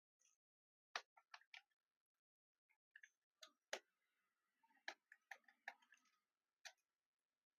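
Sparse small clicks and ticks from the screws being taken out of a laptop's plastic bottom panel, a quick run of four about a second in and scattered single clicks after, with a light scraping in the middle.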